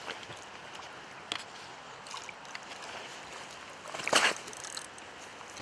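A hooked pike thrashing at the water's surface: small splashes over a steady hiss, with one loud splash about four seconds in.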